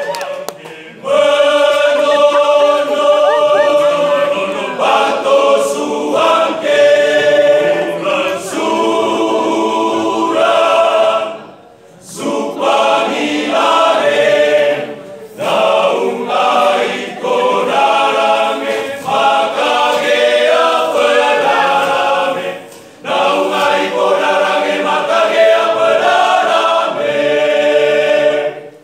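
Men's masamper choir singing a cappella in several parts, in sung phrases broken by short pauses, with no instruments.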